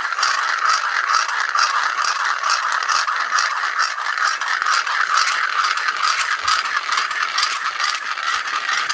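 Stones rubbed hard against rocks in rapid back-and-forth strokes: a steady grinding, rasping scrape made to lure crabs out of their holes among the boulders.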